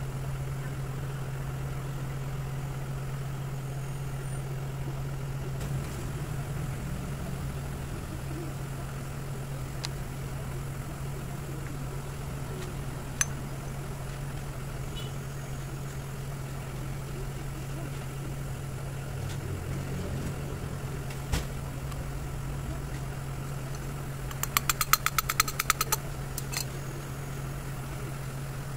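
Steady low engine hum running throughout, with a few sharp metallic clicks and, about 25 seconds in, a quick run of rapid clicks lasting about a second and a half as power steering pump parts are handled.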